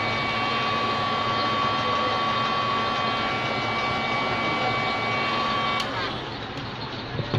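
Handheld heat gun running with a steady whine and rush of air, switched off about six seconds in so the sound drops away suddenly. A short knock follows near the end.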